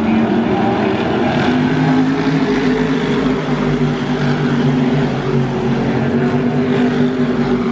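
A pack of Modified race cars circling a short oval at racing speed, their engines together making a loud, steady drone.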